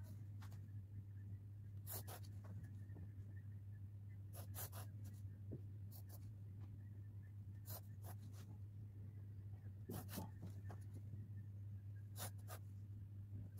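Pencil drawn along a plastic ruler on a strip of buckram, in short faint strokes a second or two apart, over a steady low hum.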